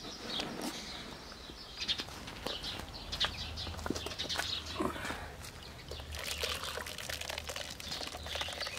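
Clinks and knocks of a metal pot and plate being set over a wood fire, then from about six seconds in water splashing as it is poured from a kettle into the pot of rolled stuffed grape leaves, adding their cooking water.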